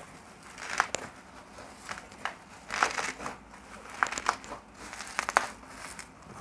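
Plastic bubble wrap crinkling as it is handled and pulled off a cardboard box, with irregular sharp crackles.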